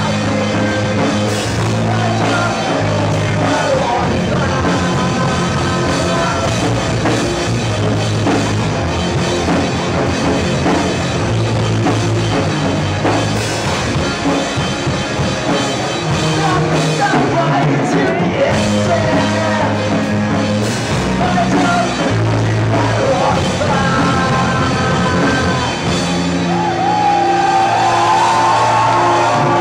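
Rock band playing a song live, with drum kit, bass line and singing.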